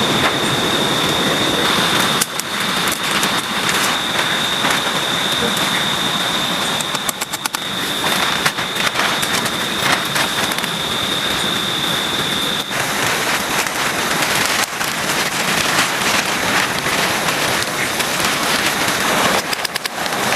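Heavy rain pouring down, with many sharp drop hits close by. A steady high-pitched tone runs through it and stops about two-thirds of the way in.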